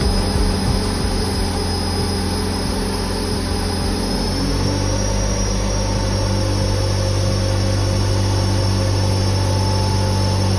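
Holden VE SV6's 3.6-litre LLT direct-injected V6 running steadily on a chassis dyno, its note stepping up slightly about four seconds in.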